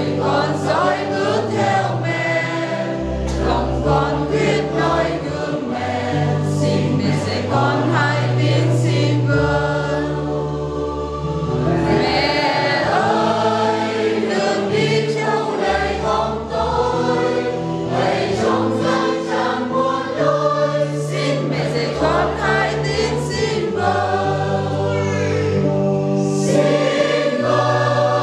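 Choir and congregation singing a church hymn together, with long held low notes sustained beneath the voices that change every second or two.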